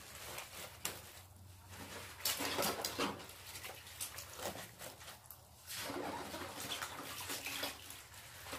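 Wet, brined napa cabbage halves being shifted around in a plastic basin by a rubber-gloved hand: irregular rustling and squeaking of the leaves with splashes of brine, in two louder spells.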